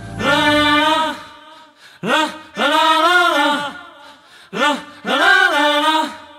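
Unaccompanied sung vocal intro of a hip-hop track: three phrases, each a short rising note followed by a long arching held note, with short pauses between them.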